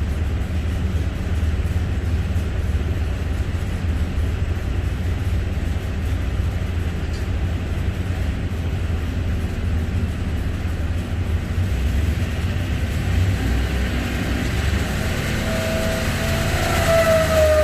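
Rebuilt Chevrolet V8 race engine from a 1969 Corvette running steadily on an engine dyno, a deep, even drone. Near the end a higher steady tone joins it and the sound gets a little louder.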